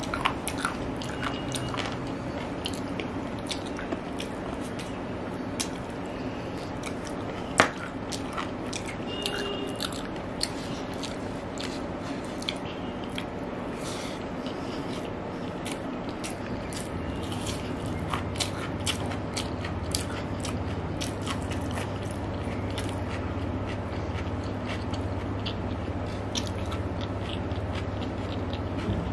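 Close-miked chewing and biting of egg biryani and chicken eaten by hand: steady wet mouth clicks and smacks, with one sharp click a little over a quarter of the way in. A low hum comes in past the halfway point.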